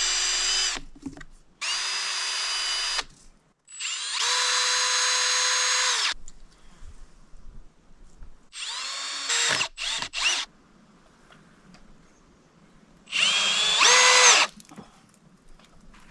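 Power drill boring holes in five short runs, each spinning up to speed and winding down again when the trigger is released.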